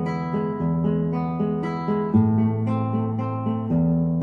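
Background music on acoustic guitar: picked notes over a bass line that changes about every second and a half.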